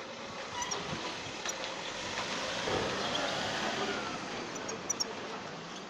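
A vehicle passing, its noise swelling in the middle and fading again, with a few faint short high chirps near the end.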